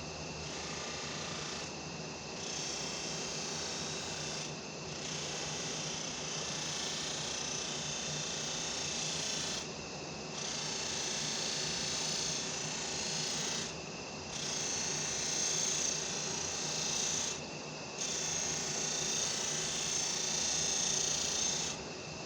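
Electric buffer running with a compound-loaded buffing pad while stainless steel trim is polished against it: a steady motor hum under a rushing hiss that drops briefly every few seconds as the part is lifted off and set back on the pad.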